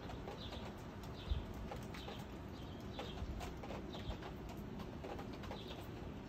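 A small bird chirping over and over, short high notes about once or twice a second, over a steady low hiss. A single low bump about a second in.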